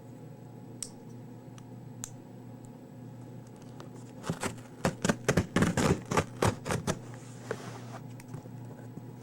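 Cardboard shipping box being handled and opened: a quick run of about a dozen sharp knocks and scrapes midway, followed by a brief rustling scrape.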